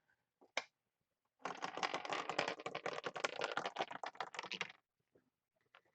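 A chip dropping down a Plinko-style peg board, clattering rapidly off the pegs for about three seconds, with a single click shortly before it.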